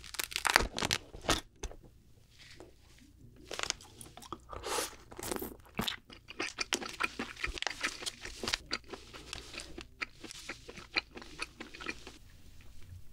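Cooked king crab shell being cracked and pulled apart by gloved hands: a run of sharp crunches and snaps, loudest in the first second or so, followed by close-up chewing of the crab meat with smaller crackles.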